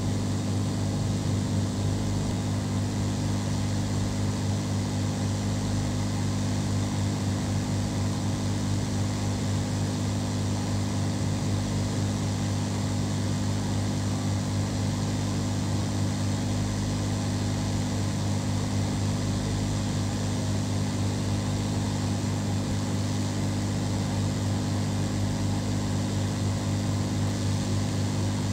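Steady, unbroken hum of a small electric fan or blower motor running, with an even hiss over it.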